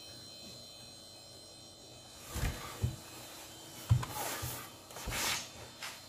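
Faint steady hum of a desktop PC running as it boots, broken in the middle by several short knocks and rustling bursts, the loudest about four seconds in.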